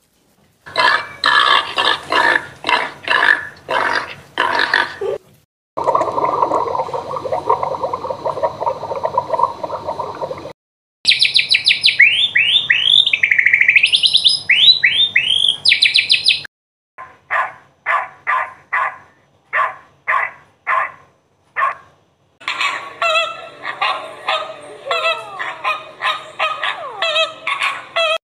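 A run of separate domestic animal call clips, cut one after another with short silent gaps: bursts of repeated short calls such as barks, a steady low rough stretch, and a passage of rapid high chirping.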